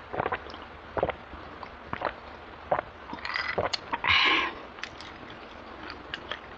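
Person gulping cola from a glass, a swallow about once a second, then a loud breathy exhale about four seconds in, followed by faint clicks.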